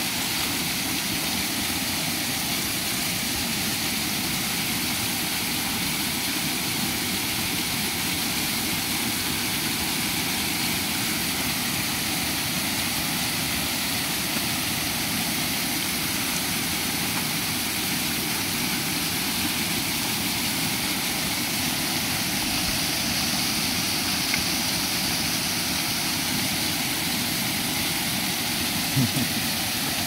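Small waterfall pouring onto rock and into a pool, a steady, even rushing noise.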